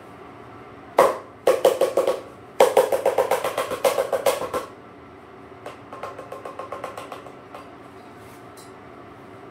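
Moluccan cockatoo giving rapid pulsed harsh calls, about seven pulses a second, in several runs: loud runs over the first half, then a fainter one.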